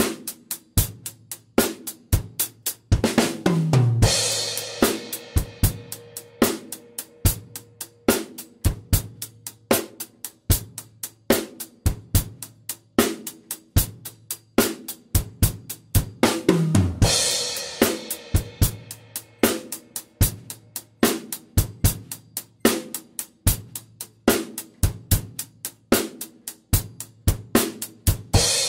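Acoustic drum kit played alone, with no backing track: a steady groove of kick, snare and hi-hat. About three seconds in, and again about sixteen seconds in, a tom fill falls in pitch and lands on a crash cymbal; another crash comes near the end.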